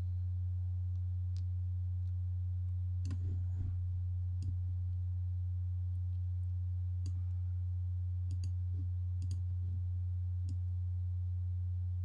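Steady low hum, with a few faint scattered clicks from a computer mouse.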